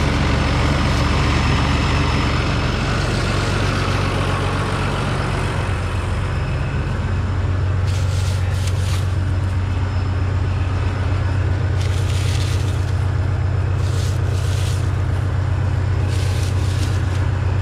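Engine of heavy farm machinery running steadily under load, its pitch shifting a little about six seconds in, with several short hissing bursts in the second half.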